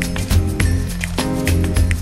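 Background music with a steady beat: a quick drum pattern over bass and chords.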